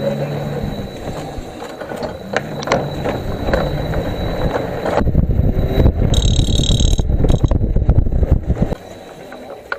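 Electric bike hub motor spinning freely with an abnormal rattling, knocking noise, which the mechanic traces to the motor's cover. It gets heavier about five seconds in and stops suddenly near the end, with a brief high tone partway through.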